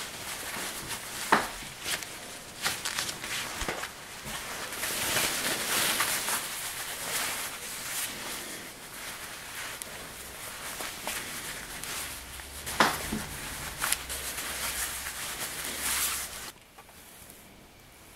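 Close-up rustling and swishing of a necktie's fabric being pulled and slid against a shirt collar as the tie is knotted, with a few sharp clicks. The rustling stops about a second and a half before the end, leaving only a faint hiss.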